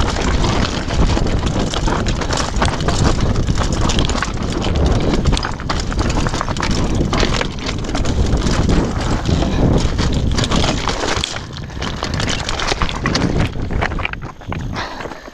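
Downhill mountain bike clattering over loose rocky scree at speed: tyres crunching on stones, the chain and frame rattling with many sharp knocks, and wind buffeting the microphone. The noise eases off in the last few seconds as the bike slows.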